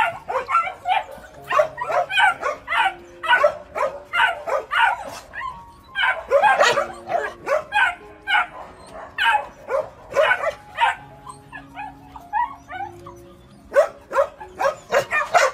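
Dogs barking repeatedly in short, sharp barks, two to three a second, with no break.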